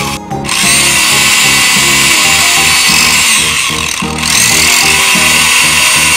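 Background music with a steady high whirring over it, like a small motor running.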